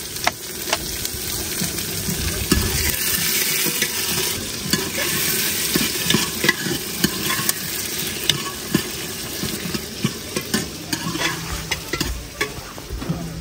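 Chopped onion and tomato sizzling in oil in an aluminium pot, stirred with a steel ladle that clinks and scrapes against the pot many times over the steady sizzle.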